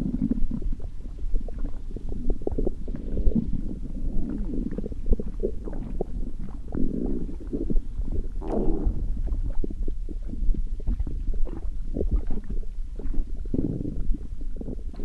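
Human stomach growling: continuous low gurgles and rumbles dotted with many small pops and clicks, with one longer, higher gurgle a little past halfway.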